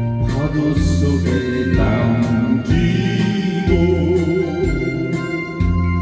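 Instrumental backing track for singing or saxophone practice in the key of B-flat, with held bass notes, a steady drum beat and a wavering melody line.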